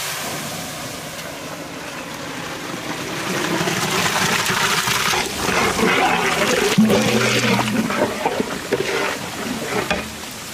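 Goat intestine soup poured from a large metal pot into a big cauldron: a steady rush and splash of liquid that grows louder a few seconds in.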